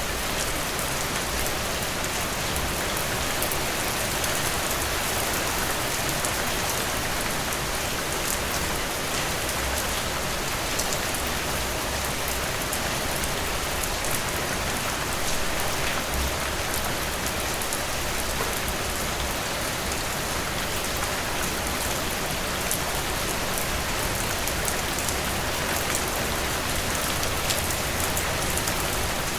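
Heavy rain pouring steadily, a dense even hiss of drops hitting a surface with fine individual patters on top.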